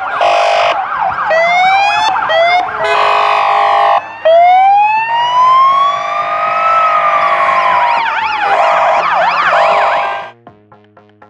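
Sirens of several ambulances passing in convoy, overlapping: steady two-tone notes, quick rising sweeps, one long slow wail that rises and falls, then a fast warble. They cut off suddenly shortly before the end, leaving faint electronic music with a ticking beat.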